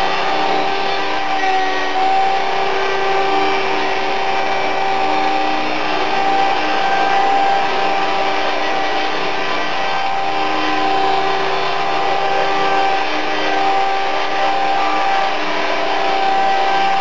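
Small electric RC helicopter (Esky 005 CP2 with a shaft-driven King tail and a brushless motor) hovering, its motor, gear and rotor whine running steadily with the pitch wavering slightly as the pilot corrects its position.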